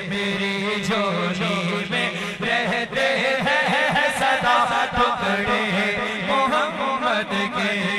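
A man reciting a naat, an Islamic devotional song, sung into a microphone in long melismatic phrases that bend up and down in pitch, over a steady low hum.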